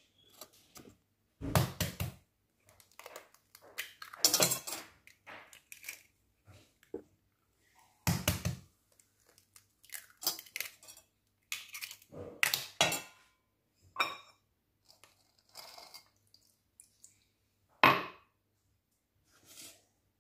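Eggs being cracked on a stainless steel mixing bowl and dropped in, with knocks and clinks of the metal bowl and wire whisk: a series of separate sharp knocks and short clattering bursts at irregular intervals.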